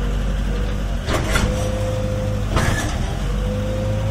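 Gehl 4510 skid steer engine running steadily, with a thin steady whine over it. Two short, louder noises break in about a second and about two and a half seconds in.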